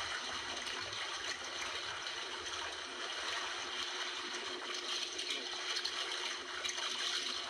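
Steady rush of sea water washing over a rocky shoreline.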